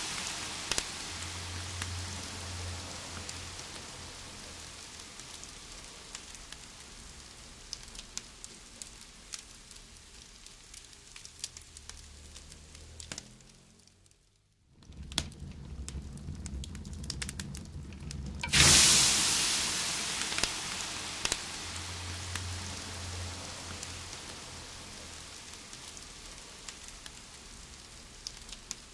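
Campfire hissing and sizzling as water hits the burning wood, with scattered sharp pops. The hiss fades slowly and drops almost away about halfway, then a fresh dousing brings a sudden loud surge of steam hiss about two-thirds in, which fades again.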